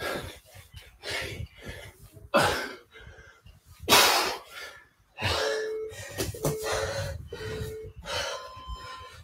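A man breathing hard, with sharp forceful exhales in rhythm with kettlebell goblet squats. From about five seconds in, an interval timer gives three short low beeps a second apart, then a longer, higher beep near the end as it counts down to the minute.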